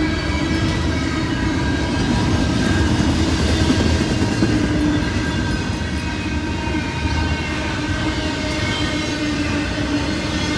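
Freight train cars rolling steadily past on the rails: a continuous rumble and clatter of wheels, with faint steady whining tones over it.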